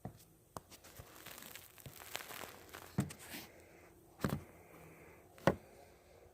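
A house cat sneezing: three short, sharp sneezes a little over a second apart, the last the loudest, with some rustling before them.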